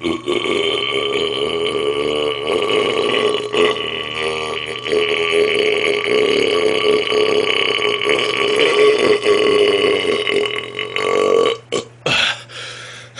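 A man's single long belch, held at a fairly steady pitch for about eleven seconds until he runs out of breath; a few short breaths follow near the end.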